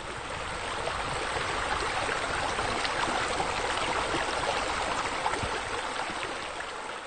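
Steady rushing, trickling noise like running water in a stream, fading in and then fading out near the end.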